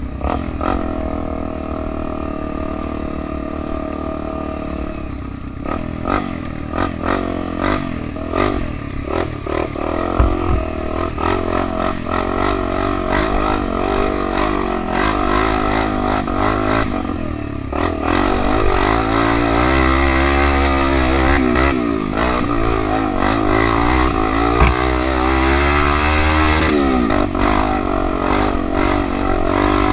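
Trail motorcycle engine running and revving on a trail ride, its pitch rising and falling with the throttle, with clattering knocks over rough ground. It gets louder past the middle, with the revs swinging widely up and down.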